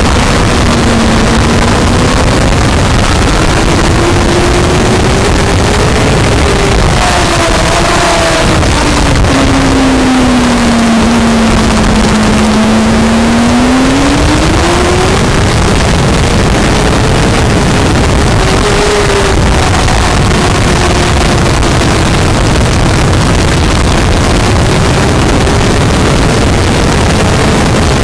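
Sport motorcycle engine heard onboard at speed under heavy wind rush on the microphone. The engine note drops as the bike slows through a corner about ten seconds in, stays low for a few seconds, then rises again as it accelerates out.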